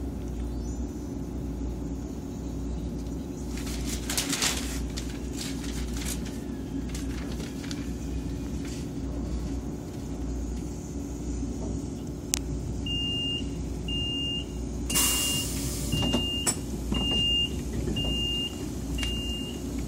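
Inside a KTX-Sancheon high-speed train stopping at a station platform: a steady low hum, a loud burst of hissing air about three-quarters of the way in, and short high beeps about once a second starting about two-thirds in, a door warning signal.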